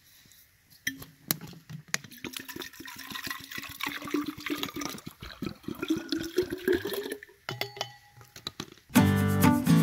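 Water poured from a plastic bottle into a narrow-necked insulated bottle, splashing, with a pitch that rises as the bottle fills; the pour stops about seven seconds in, followed by a few light clicks. Acoustic guitar music starts near the end.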